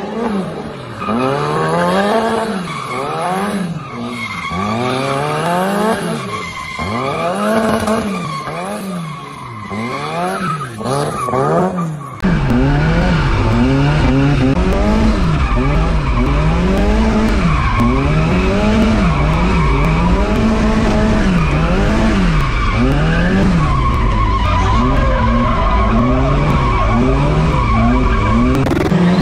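Small kei truck engine revving up and down over and over while drifting, about once a second, with the tyres skidding. About twelve seconds in the sound cuts to inside the truck's cab: louder, with a steady deep rumble under the revving.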